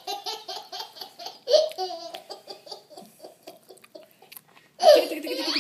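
A toddler laughing in quick, rhythmic bursts of giggles, with a louder, higher laugh near the end.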